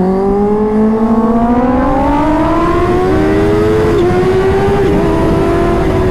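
Kawasaki Ninja H2's supercharged inline-four engine pulling hard under full acceleration, its pitch rising steadily and dipping briefly about four seconds in, over wind noise on the bike-mounted microphone.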